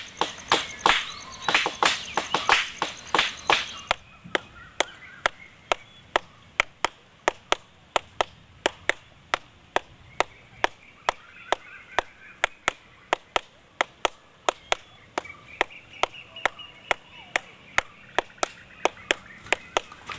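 Steady rhythm of sharp, dry taps, about three a second, denser and brighter for the first four seconds and then more evenly spaced.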